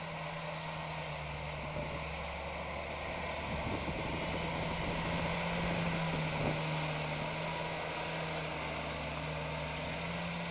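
John Deere 8320R tractor's six-cylinder diesel engine running steadily under load as it pulls a slurry tanker and cultivator working slurry into the soil. It grows louder as the tractor draws close around the middle and eases off a little near the end.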